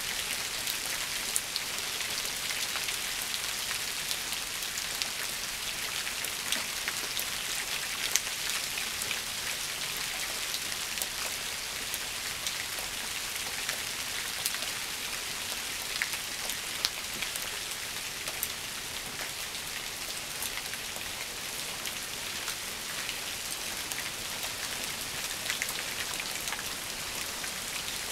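Steady rain falling on shrubs and leaf-covered ground: an even hiss with scattered sharp ticks of single drops striking close by.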